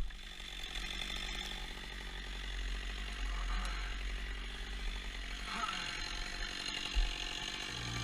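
Holzknecht HS 410 chainsaw running low and steady, with a sharp crack right at the start.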